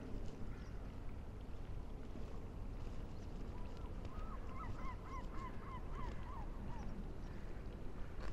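A bird calling a quick run of about a dozen short notes, three or four a second, each rising then falling, from about three and a half to seven seconds in. Under it runs a steady low background rumble.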